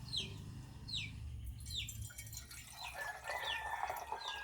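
A bird chirping repeatedly in short falling notes, about one or two a second. About three seconds in, water starts pouring into the base of a stovetop espresso maker as it is filled.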